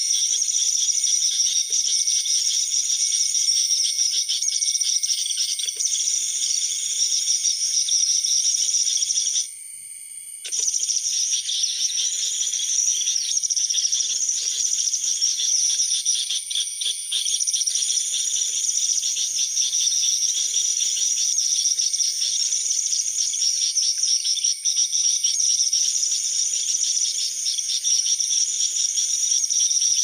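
Dense, rapid, high-pitched chittering of small-bird calls from a lure recording (pikat) played to draw birds in. It runs on loudly and without let-up, except for an abrupt cut of about a second near ten seconds in, while fainter natural chirping carries on behind it.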